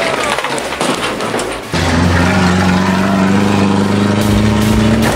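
A vehicle crashing through with crunching impacts and clattering debris, then, about two seconds in, an engine running at steady high revs.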